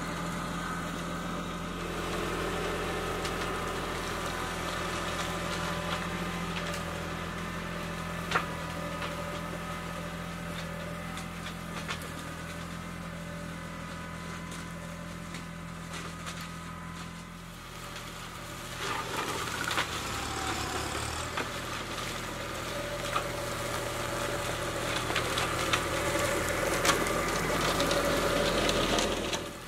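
Kubota B2261 compact tractor's three-cylinder diesel engine running steadily as it drives, with scattered sharp clicks. The engine note changes about two-thirds of the way through and gets louder near the end as the tractor passes close.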